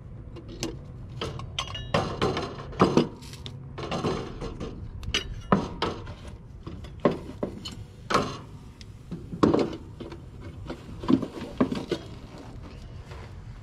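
Irregular metallic clinks and knocks of hand pliers on copper refrigerant tubing as a heat pump's new reversing valve is worked into place, a few strikes ringing briefly.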